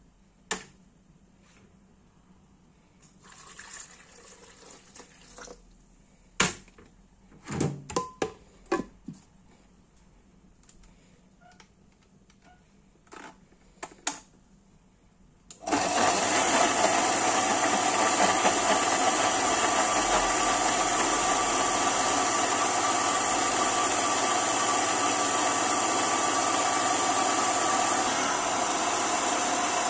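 A few clicks and knocks, then about halfway through a SilentMixx countertop blender's motor starts and runs steadily, blending banana and ginger into a smooth drink.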